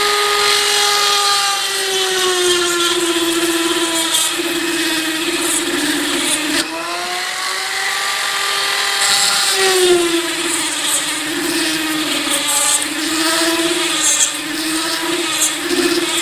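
High-speed handheld rotary tool grinding a small sharpening notch into the heel of a carbon-steel Morakniv Bushcraft blade. Its steady whine sags in pitch as the bit bears on the steel and picks back up when eased off, wavering in quick dips near the end.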